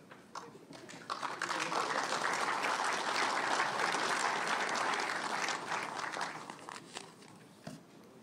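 Audience applauding, swelling about a second in, holding steady, and fading out over the last couple of seconds.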